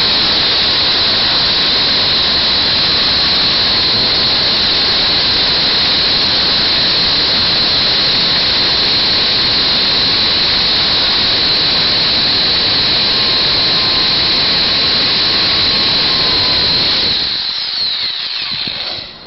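Titan electric pole chainsaw running under load, cutting through a hard beech trunk about six inches thick, a steady high whine. Near the end the motor winds down as the cut goes through.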